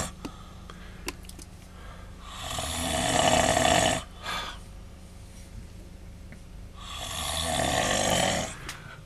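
A man snoring: two long snores, each under two seconds, about four and a half seconds apart.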